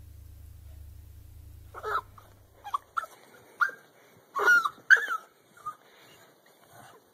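Small dog giving a quick series of short, high yips and yelps while scuffling with a cat, about eight or nine in a few seconds, the loudest near the middle.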